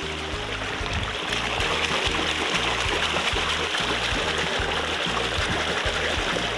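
Running stream water rushing and splashing as a hand swishes a toy bus through it, louder from about a second in, over background music with a steady beat.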